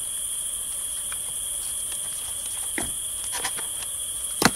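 Steady chirring chorus of crickets. A few short clicks come through about three seconds in, and a louder sharp click near the end.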